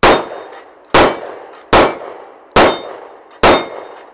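Sig Sauer P365-series micro-compact pistol fired five times at a steady pace, a little under a second apart. Each shot is followed by a ringing tail, in keeping with hits on steel targets.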